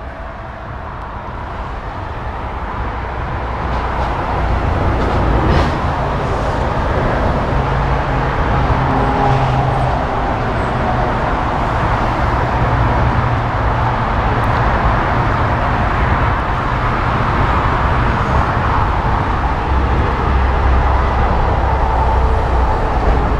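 Jet engines of an Airbus A310 (CC-150 Polaris) taxiing: a steady rush and rumble with a faint whine, growing louder over the first few seconds as the aircraft comes closer, then holding steady.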